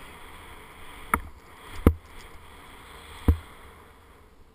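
A run down a powder snow slope picked up by a body-worn action camera: a steady swishing hiss of snow under the ride, broken by three sharp knocks about one, two and three seconds in as the camera jolts.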